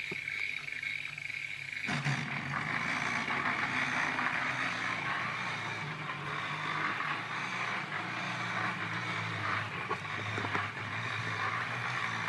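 Small battery motor of a nasal hair trimmer buzzing steadily as it drives a toy car's axle through a worm gear. About two seconds in, a rougher rumble joins as the car moves slowly across the wooden floor on its very low gearing.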